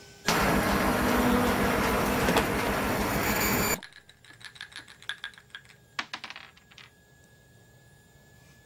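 Front-loading washing machine running loudly, a rushing drum noise with a fast low pulse that starts suddenly and cuts off abruptly after about three and a half seconds. Then a die clatters across the tabletop in a run of small clicks that thin out and stop.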